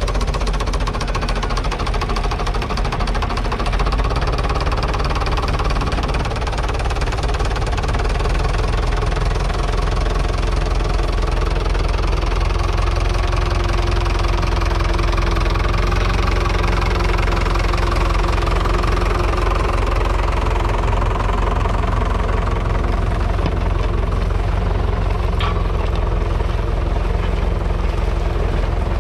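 1959 Fordson Power Major's 3.6-litre four-cylinder diesel engine running steadily under load as it pulls a three-furrow mounted plough through the soil.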